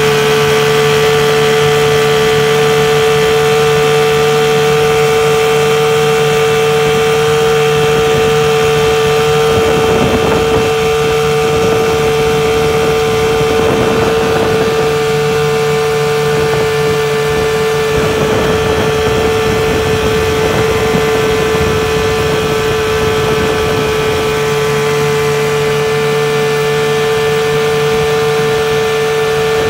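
15 hp outboard motor running at a steady speed, pushing the small boat through the water, its pitch holding level throughout. A rushing noise rises over it from about ten seconds in and fades again after about twenty seconds.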